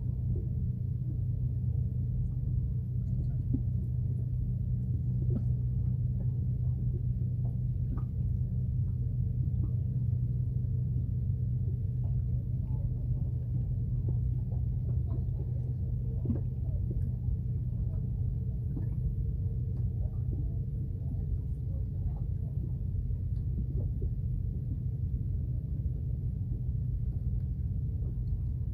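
Small fishing boat's engine idling: a steady, even low hum with no change in pitch, with a few faint ticks over it.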